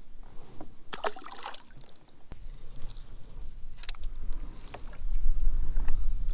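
A small largemouth bass is let go over the side of a kayak, with a short splash about a second in, followed by a few sharp clicks of rod and gear handling. Wind rumbles on the microphone and grows much stronger near the end.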